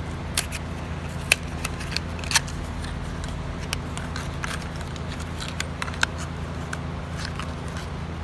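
A small cardboard spark plug box being opened and handled, giving a string of sharp cardboard clicks and crackles, most of them in the first few seconds, as the plug is slid out. Under it runs a steady low mechanical hum.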